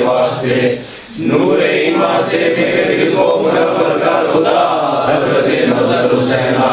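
Several men's voices chanting a devotional prayer together, with a short break for breath about a second in.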